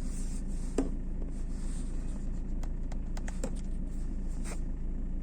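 Chinese diesel air heater running: a steady low drone with a few sharp clicks, the loudest about a second in.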